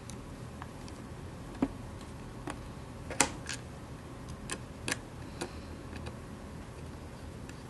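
Grip-panel screws being fitted into a metal 1911-style air pistol frame with a small screwdriver. There is a handful of light, sharp clicks and taps at uneven spacing, stopping about two-thirds of the way through.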